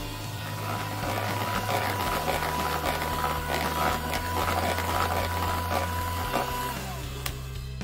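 Electric hand mixer running, its twin beaters whisking thin red velvet cupcake batter in a bowl, a steady motor whine over a wet churning. The whine stops about a second before the end as the mixer is switched off.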